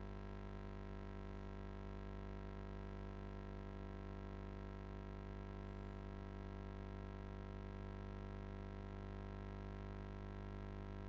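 Steady electrical hum with many overtones over a faint hiss, unchanging throughout.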